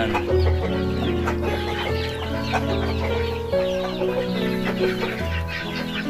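Chickens clucking over background music that has held notes and a low bass line.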